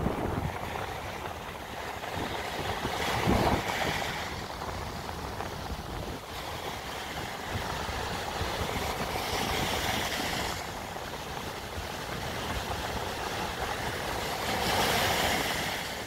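Sea surf on a sandy beach: waves breaking and foamy wash running up the sand, a steady rushing that swells three times, about three seconds in, around ten seconds and near the end.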